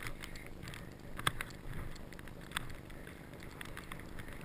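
Skis hissing through fresh powder snow, with wind on the microphone and a few sharp clicks, the loudest about a second in and another around two and a half seconds in.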